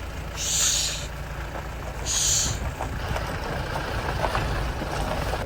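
Heavy engine running with a steady low rumble, broken by two short hisses of released air about a second and a half apart.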